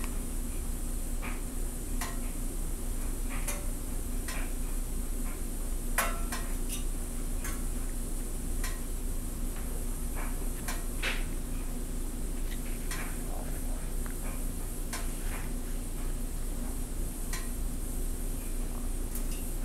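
Scattered light clicks and ticks, roughly one a second and irregular, over a steady low electrical hum and hiss.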